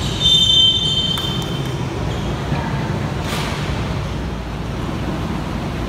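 Referee's whistle blown once, a short shrill blast of under a second, calling a foul that sends a player to the free-throw line. A steady background din of the gym hall runs underneath.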